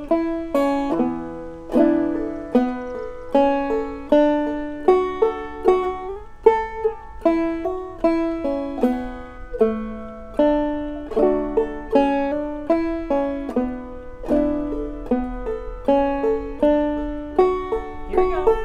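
Five-string banjo played clawhammer style, in standard G tuning capoed at the second fret, picking out a driving old-time fiddle tune in the key of A with a steady rhythm of ringing plucked notes.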